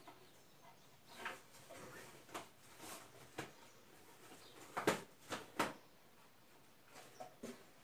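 Scattered light knocks and rustling as a small decorative party cylinder in a printed fabric cover is set on top of a stack and adjusted by hand, with a cluster of sharper knocks about five seconds in.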